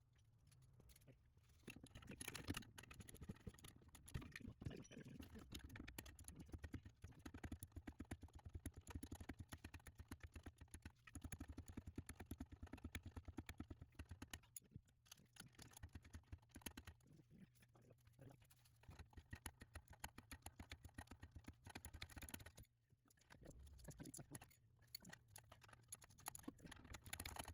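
Hand ratchet wrench clicking in fast runs with short pauses, a socket ratchet tightening the bolts on a newly fitted exhaust.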